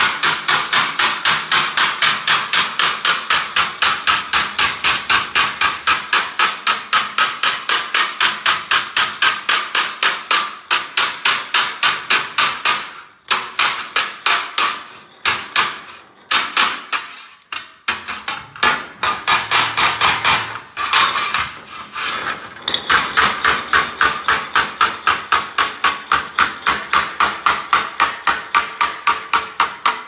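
Body hammer striking the edge of a sheet-metal patch panel against a hand dolly in quick, steady blows, about four a second, bending the edge over. Around the middle the blows thin out into scattered strikes with short gaps, then pick up the steady rhythm again.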